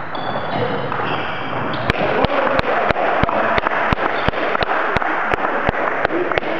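Table tennis ball bounced over and over in an even rhythm, about three sharp clicks a second for some four seconds, over the steady background noise of a sports hall.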